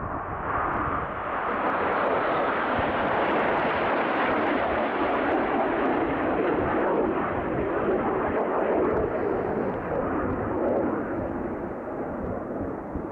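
RAF training aircraft passing low overhead, its engine noise building over the first couple of seconds, holding steady, then fading toward the end. Gusts of wind buffet the microphone throughout.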